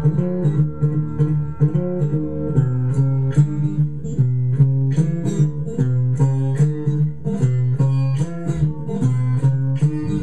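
Solo acoustic blues guitar, plucked with a steady alternating bass line under the melody notes, played back from a mono vinyl LP on a turntable.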